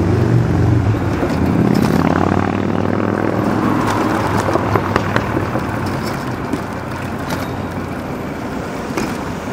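Street traffic: a motor vehicle's engine running close by at first and fading, over steady road noise with scattered clicks and rattles.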